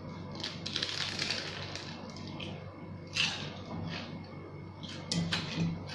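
Crisp crunching of a fried chicken spring roll (lumpia ayam) being bitten and chewed, with a few separate crunches and quieter chewing in between.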